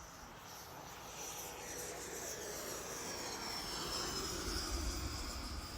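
FPV model airplane making a fast, low flyby: its motor whine grows steadily louder and slides down in pitch as it passes. A low rumble builds near the end.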